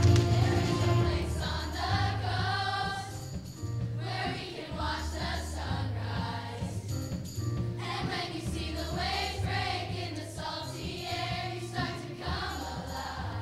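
Middle school show choir singing in unison over an instrumental accompaniment with a bass line that moves in held notes.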